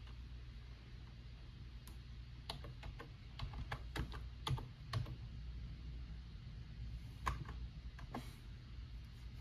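Computer keyboard typing: a quick run of keystrokes a few seconds in, then a couple of single keystrokes near the end, over a steady low hum.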